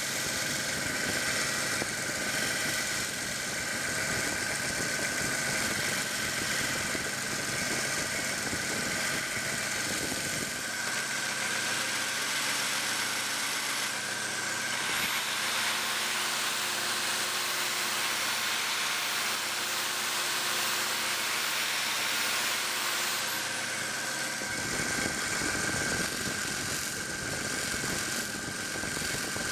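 A 1x30 belt sander running with a conditioning belt on it: a steady motor hum with a high belt whine. For a stretch in the middle it turns thinner and hissier.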